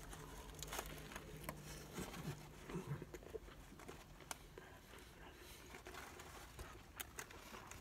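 Faint chewing of a mouthful of bacon cheeseburger, with soft, irregular mouth clicks.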